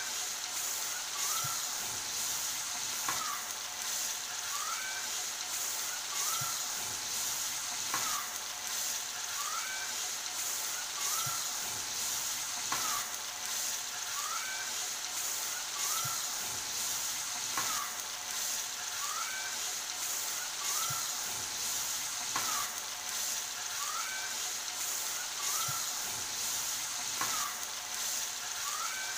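Hilsa fish pieces frying in hot oil in a karahi, a steady sizzle, with the metal spatula scraping and knocking against the pan now and then as the pieces are turned. A short rising chirp repeats faintly about every second and a half.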